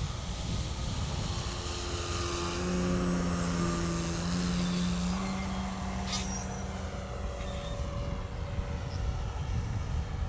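Electric brushless motor and propeller of a large radio-controlled Seagull Models Ercoupe in flight: a steady whine that is loudest about three seconds in and then fades, over wind noise on the microphone.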